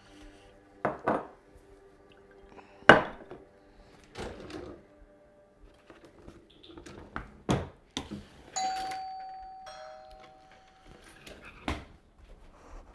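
A two-note ding-dong doorbell chime, a higher note followed about a second later by a lower one, both ringing out and fading. Scattered knocks and thuds come before it, the loudest a sharp knock about three seconds in.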